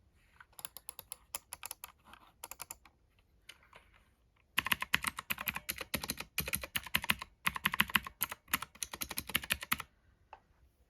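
Mechanical keyboard being typed on: a few light, scattered keystrokes, then loud, fast continuous typing from about four and a half seconds in until near the end.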